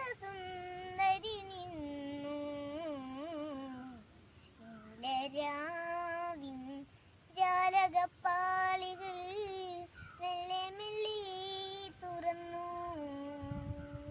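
A young girl singing solo and unaccompanied, in long held phrases with short breaks between them.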